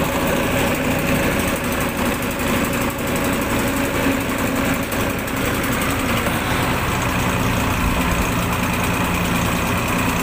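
A fishing boat's engine running steadily, a constant low hum with no change in speed.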